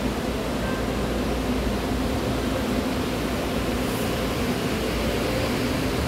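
Steady mechanical hum and rushing noise of a Breda light-rail car standing with its doors open at an underground platform.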